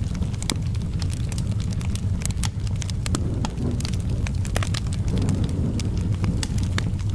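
Wood fire crackling in a fireplace: scattered sharp pops and snaps over a steady low rumble.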